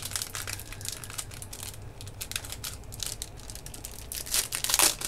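Plastic packets of craft embellishments crinkling as they are handled, in irregular crackles that are loudest near the end.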